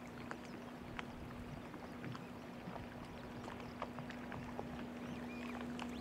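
Small waves lapping against moored motorboats, with many irregular light clicks and knocks from the hulls and fittings, over a steady low hum.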